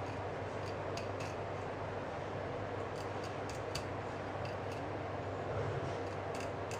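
A fillet knife cutting along an American shad, giving scattered faint crisp clicks and scrapes over a steady background hum.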